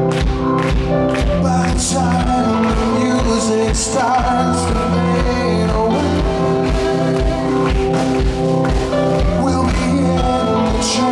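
Live rock band playing: a steady drum beat, electric guitar and keyboard, with a male singer's vocals over them.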